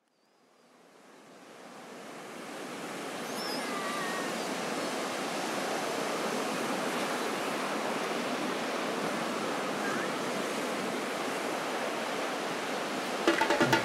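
Steady wash of ocean surf, fading in from silence over the first few seconds, with a couple of faint high wavering calls about four seconds in. Near the end, music with a drum beat comes in.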